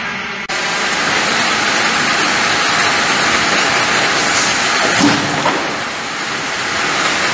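Multi-saw circular log-sawing machine with upper and lower saw shafts cutting a round log: a loud, steady rushing noise of the blades in the wood and the motors running, with a short knock about five seconds in.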